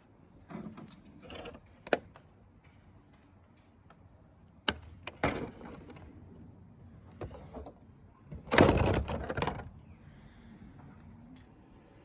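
Parkside electric pressure washer (jet wash) firing in short bursts of about a second, with sharp clicks between them, the loudest burst about two thirds of the way through, as the RC crawler chassis is sprayed clean.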